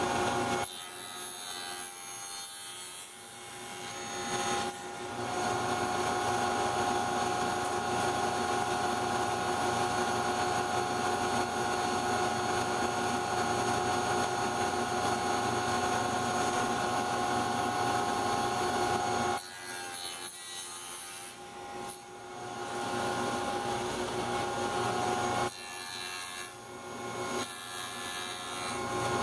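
Contractor's table saw with a half-inch dado blade running and cutting box-joint notches in wood, a steady machine hum with an even whine. It drops abruptly quieter a few times.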